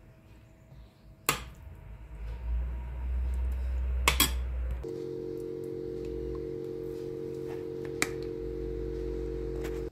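A few sharp clinks of a utensil against dishes: one, then a quick pair, then one more near the end. About halfway through, a steady appliance hum of several even tones starts and stops suddenly at the end.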